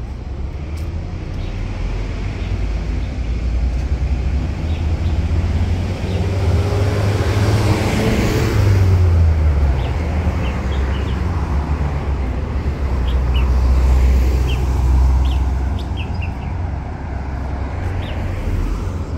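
Road traffic: a steady low rumble of vehicles passing, swelling twice, about 8 and 14 seconds in. Small birds chirp in short notes through the second half.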